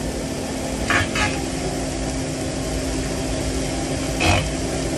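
Diced ham, onion, jalapeños and mushrooms sizzling steadily on a flat-top griddle over a steady hum. Three short clatters break through, two about a second in and one near the end.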